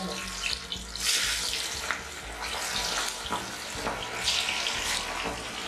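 Masala-coated catfish pieces deep-frying in hot oil in a kadai, a dense sizzle with many sharp crackles and pops. The sizzle surges as more pieces are dropped into the oil, about a second in and again near four seconds.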